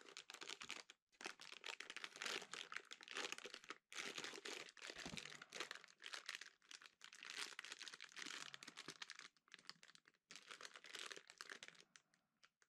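Faint crinkling and rustling of a clear plastic bag as a bottle sealed in it is lifted and handled, going almost without a break, with a few short pauses.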